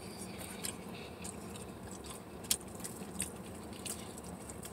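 Quiet eating sounds: chewing, with scattered small clicks and crinkles from handling fast-food packaging, and one sharper click about halfway through.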